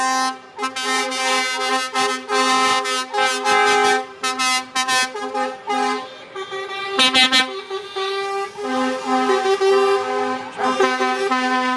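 Truck air horns from a convoy of lorries sounding over and over at several different pitches. Short toots and longer held blasts overlap one another.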